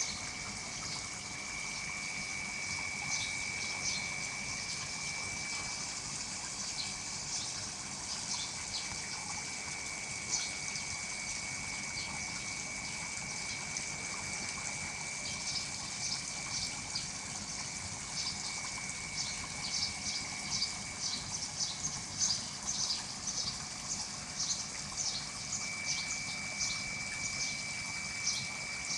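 Water bubbling and trickling steadily into a pond from an inflow. A thin high tone comes and goes over it, and quick sharp ticks grow busier in the second half.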